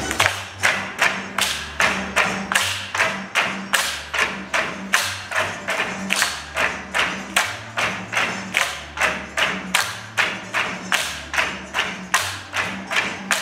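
Bamboo poles of a tinikling dance, struck on their wooden blocks and clapped together in a steady rhythm of sharp wooden knocks, about two to three a second. Music with a bass line plays underneath.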